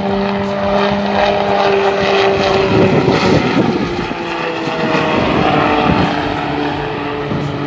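Piaggio P.180 Avanti's twin pusher turboprops droning as the aircraft passes low on approach with gear down. A steady hum whose pitch slowly falls as it goes by, with the rushing noise loudest about three seconds in.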